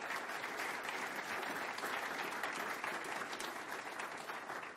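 Audience applauding to welcome a speaker after her introduction, steady clapping from a roomful of people that begins to thin out near the end.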